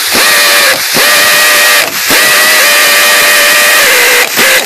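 A 3/8-inch air impact wrench running hard in several long bursts with short pauses, spinning the seized upper nut off a front sway bar link stud while the stud is held with a wrench.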